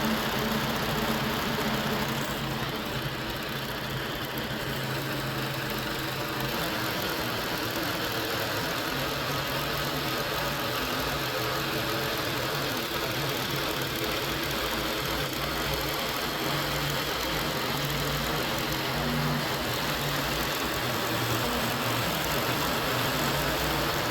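Harbor Freight band sawmill's gasoline engine running steadily, stopping abruptly at the end.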